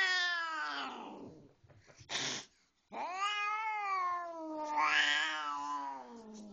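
Agitated Siamese cat yowling: a long cry falls away about a second in, then after a brief burst of noise a second long yowl starts, sliding down in pitch and turning rough partway through. It is the distress caterwaul of a cat that hates the vet's office.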